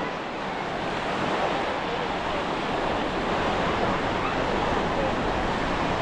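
Ocean surf breaking on a sandy beach, a steady wash of waves, with faint voices of people on the beach mixed in.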